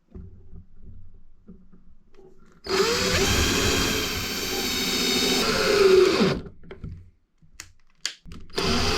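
Electric drill run in a burst of about three and a half seconds, the motor's pitch sagging and then falling as it winds down; a couple of sharp clicks follow, and a second run starts near the end.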